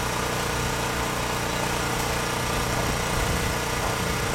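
Steady engine-like drone with a hiss and a low rumble, unbroken and unchanging.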